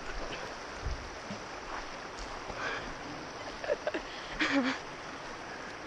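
Steady rush of river water flowing over rocks, with a few short faint sounds over it through the middle.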